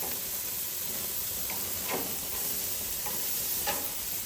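Meat sizzling on a grill, a steady hiss with a few small pops.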